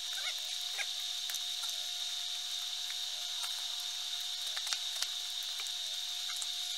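Steady hiss with a high whine in it and a faint steady lower tone, the self-noise of the recording, with a few faint clicks and two short chirps near the start.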